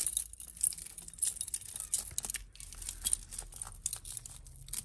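A pile of costume jewellery being handled and untangled by hand: metal chains and beads clinking and rattling against each other in many small, irregular clicks.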